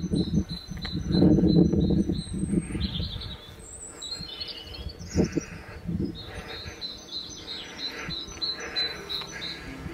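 Small birds chirping outdoors, a run of short high chirps repeated several times a second with a few sweeping calls mixed in. A louder low rumbling noise comes in the first two seconds.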